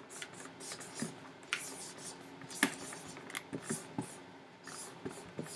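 Irregular light clicks and soft scraping strokes, about a dozen spread over a few seconds: small handling noises close to the microphone.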